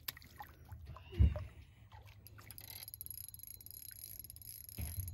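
A small hooked fish splashing and thrashing at the water's surface beside an aluminium boat, followed about a second in by a dull thump, the loudest sound, and another low knock near the end.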